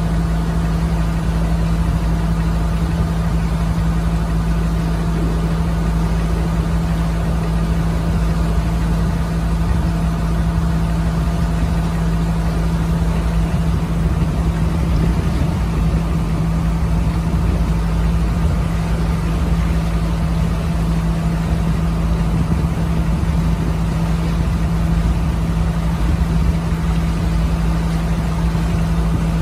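Passenger launch boat's engine running steadily while the boat cruises, an even drone that holds the same pitch and level throughout.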